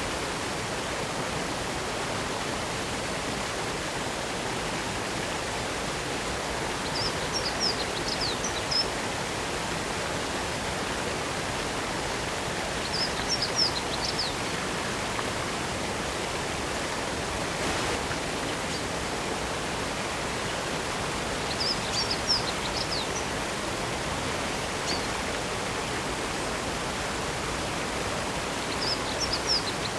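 Spring water falling over rock at a small waterfall, a steady rushing hiss. A small bird calls over it four times in short bursts of high chirps.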